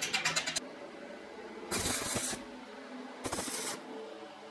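Stick-welding arc crackling and hissing in three short bursts as tack welds are struck on a steel tube.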